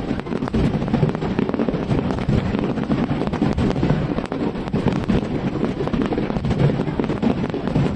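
Fireworks going off: a dense, continuous run of bangs and crackles over a low rumble, with no break.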